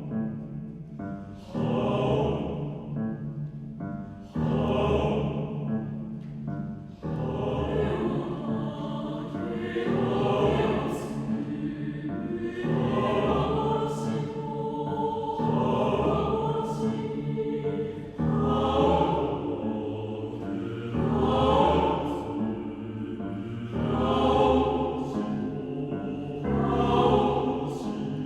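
Mixed choir singing with piano accompaniment, the piano sounding strong low accents under the voices.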